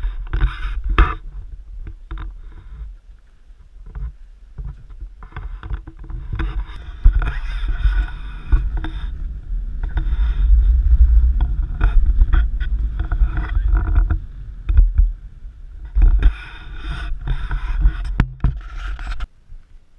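Engine and road rumble heard inside a van driving fast on a gravel road, loudest in the middle, with irregular knocks and buffeting from the cabin.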